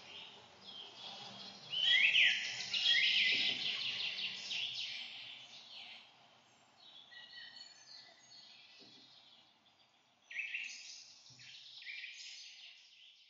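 Birds chirping and trilling, with several quick falling calls and a quieter stretch in the middle, as a forest ambience bed; it stops abruptly at the end.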